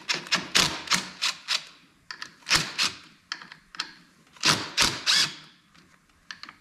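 Cordless power driver with a 10 mm socket backing out the four clutch spring bolts on a Honda ATC 250es engine. It runs in short spurts, making a string of sharp clicks with a few louder rattling bursts.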